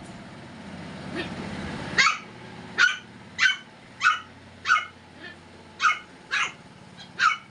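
One-month-old German Spitz puppy yipping over and over, short high sharp barks about every half second starting about two seconds in.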